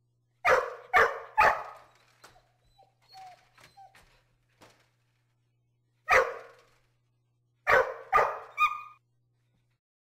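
Border collie barking: three quick barks, then a few soft short whimpers, a single bark about six seconds in, and three more barks in quick succession near the end.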